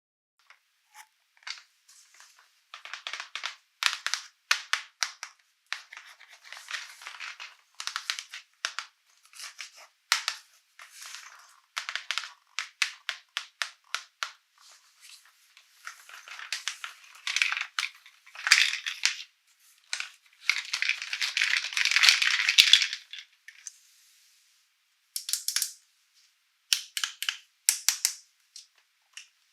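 Plastic toy packaging and parts handled close up: irregular light clicks and crinkling rustles, with a longer stretch of crinkling about two-thirds of the way through.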